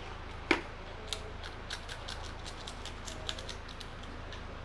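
A snack can and its contents being handled and eaten: one sharp knock about half a second in, then a run of quick, crisp clicks and crackles.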